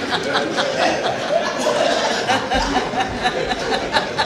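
A congregation laughing and chuckling, many voices overlapping.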